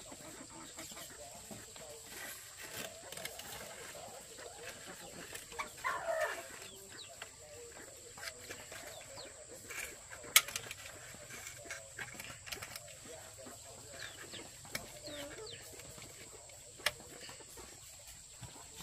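Chickens clucking, with a few short calls. A sharp click about ten seconds in is the loudest sound, with another near the end.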